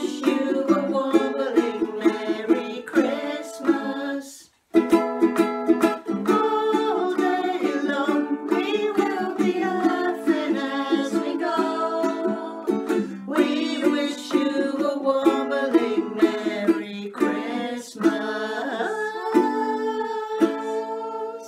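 Ukulele strummed in a steady rhythm with voices singing along, breaking off briefly about four and a half seconds in.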